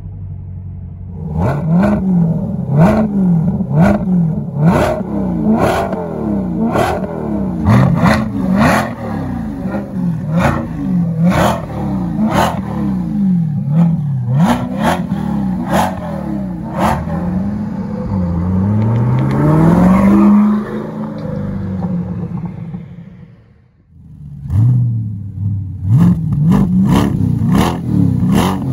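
Chevrolet Corvette C8 Stingray's 6.2-litre V8 revved in quick blips while parked, through a Kinney's aftermarket performance exhaust; each rev climbs and falls back within about a second, with sharp pops. About two-thirds in comes one longer rev, then a short lull, then more quick blips near the end.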